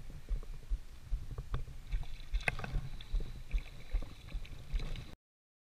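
Daiwa Ninja LT spinning reel being cranked as a small hooked sea bass is reeled in, with irregular low knocks and rumble from handling and splashes of the fish at the surface. The sound cuts off suddenly near the end.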